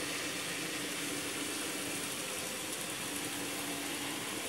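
Steady background hiss with a faint, steady low hum underneath; no distinct events.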